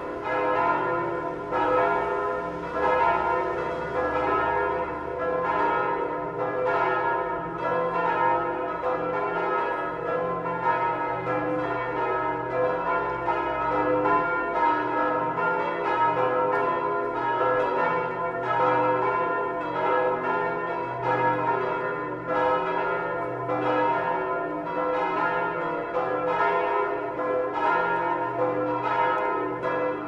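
A peal of church bells ringing together, with overlapping strikes about two a second and their tones ringing on: the call to Sunday mass.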